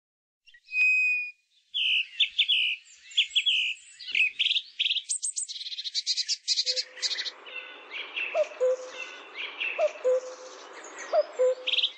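Birds singing: a mix of high chirps, whistled notes and quick trills. About halfway through, a lower short call starts repeating every second or so over a soft steady hiss.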